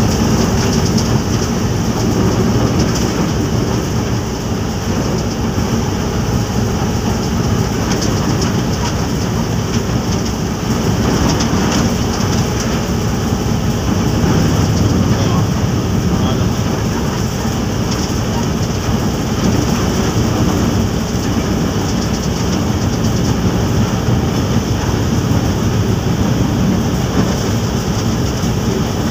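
Steady running noise inside a diesel locomotive's cab at speed: the engine and the wheels running on the rails.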